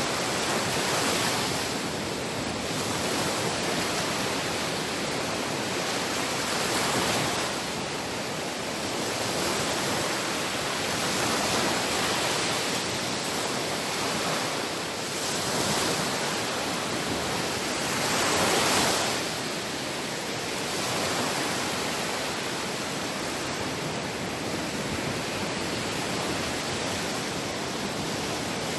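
Sea waves washing in, a continuous rushing hiss that swells every few seconds as each wave breaks, with the biggest surge a little past the middle.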